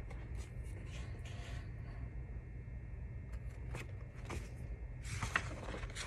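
Quiet room with a steady low hum, and a few faint clicks and soft paper rustles from a picture book being held up and its pages handled, a little louder about five seconds in.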